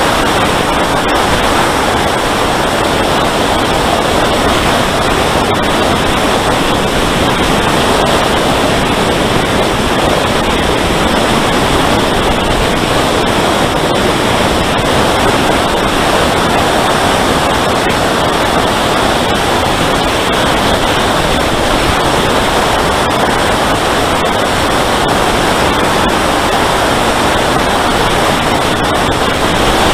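Steady, loud rushing noise picked up by an RC plane's onboard camera microphone in flight, the airflow over the airframe and microphone blending into an even roar with no distinct tone.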